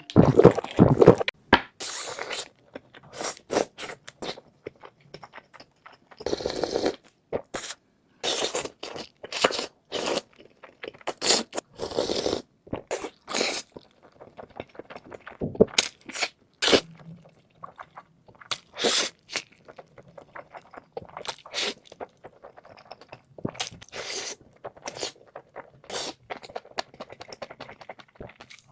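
Close-miked eating: irregular crunching and chewing of food, with some scraping, in a long run of sharp, uneven clicks and crackles.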